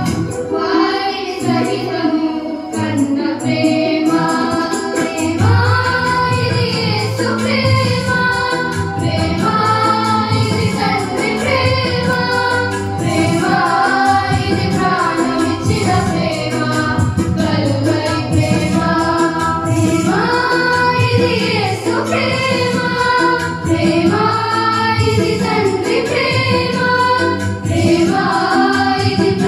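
A group of schoolgirls singing a song together into microphones, their voices amplified, with held and gliding notes over a steady low instrumental accompaniment.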